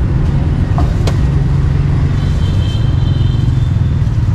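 Steady low rumble of street traffic with motorbikes and cars. A couple of sharp clicks come about a second in, and a faint high tone runs briefly near the middle.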